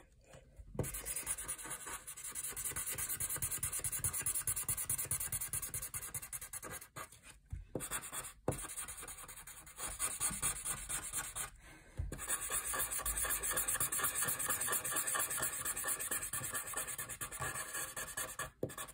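Felt-tip marker scribbling quickly back and forth on paper, filling in a large area of colour. The strokes run in long spells, broken by a few short pauses midway.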